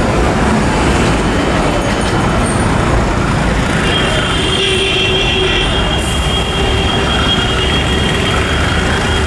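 Jet airliner engine noise: a loud steady rumble, joined about four seconds in by a high steady whine.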